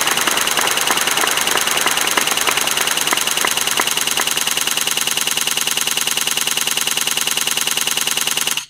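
Car engine idling, a fast even throb with a harsh hiss over it, cutting off abruptly near the end.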